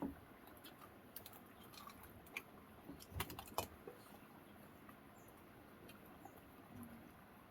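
Faint, scattered small clicks and taps, with a few louder knocks about three seconds in.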